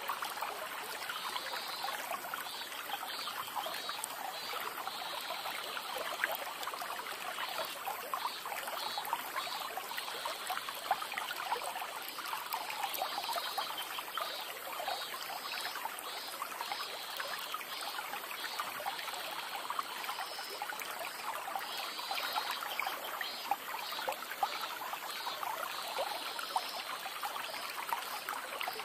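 Water trickling and splashing close by a plastic kayak as it is paddled along a slow river, a steady crackly dribble of small ticks. Faint high chirping comes and goes over it.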